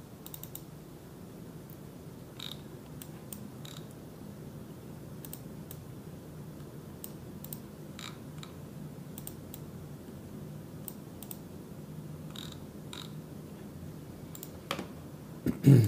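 Scattered computer mouse and keyboard clicks, a few at a time with pauses between, over a low steady hum. Near the end come a couple of dull thumps, the loudest sounds.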